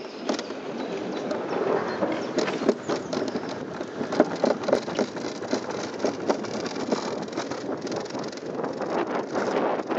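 Summer toboggan sled sliding fast down a stainless-steel trough track: a continuous rattling rumble with frequent sharp knocks as the sled jolts in the metal channel.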